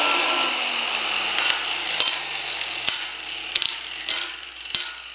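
Angle grinder spinning down after being set on a steel table, its whine falling in pitch and fading. Over it, thin steel bar strips clink sharply on the steel table top about six times as they are handled.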